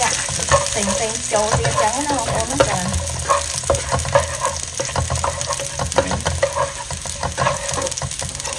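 Chopped garlic sizzling in hot oil in a nonstick wok while a spatula stirs it, with many short scrapes and taps of the spatula against the pan over a steady hiss.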